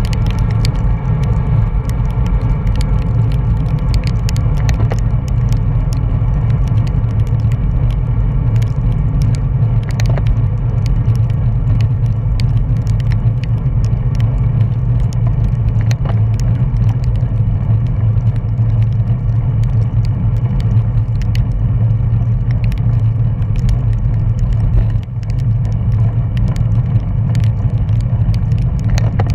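Wind rushing over a bicycle-mounted camera's microphone while a road bike rides at speed on asphalt: a loud, steady low rumble with scattered small clicks and rattles.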